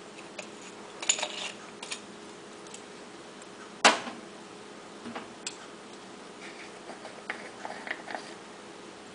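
Light clicks and taps of plastic measuring spoons and spice jars being handled, with one sharper click about four seconds in, over a faint steady hum.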